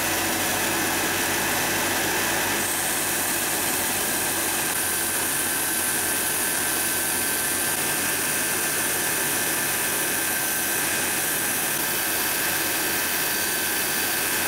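Small bench belt sander running steadily with a narrow vertical sanding belt, a wooden knife-handle blank pressed against it: a steady hiss of abrasive on wood over the motor's hum.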